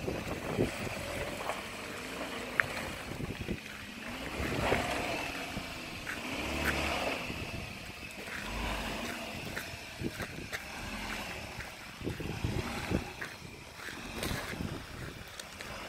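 Hyundai Tucson SUV's engine running as it drives slowly over a muddy dirt track, the revs rising and falling several times, with scattered sharp clicks.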